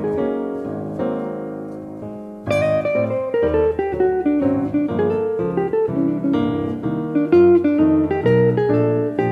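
Background music led by plucked acoustic guitar. One phrase fades out about two seconds in, and a new, louder phrase with low bass notes starts half a second later.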